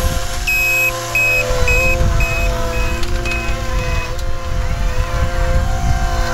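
Caterpillar 259D3 compact track loader running steadily on its diesel engine while its reversing alarm beeps about twice a second, a sign the machine is backing up. The beeping stops about four seconds in, when the loader stops reversing, and the engine keeps running.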